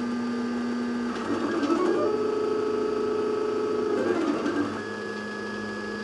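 3D printer's stepper motors whining while the nozzle traces the walls of a small spiral-vase print. The pitch holds steady for a second or two, then warbles briefly and settles on a new tone with each change of move.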